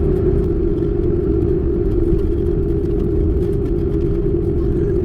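Steady road and engine noise inside a car's cabin while driving at highway speed, a constant drone with a low rumble beneath it.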